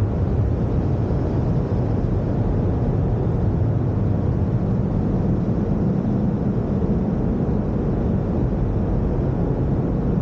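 Automatic car wash's air dryer blowers blowing on the car: a steady rush of air with a deep rumble underneath, heard from inside the car.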